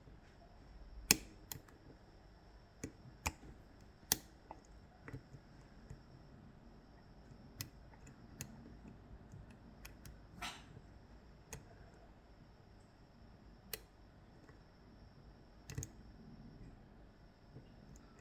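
Scattered small clicks and taps from working a pin-tumbler lock by hand with its picking tools, irregular and spaced a second or more apart, the sharpest about a second in and about four seconds in.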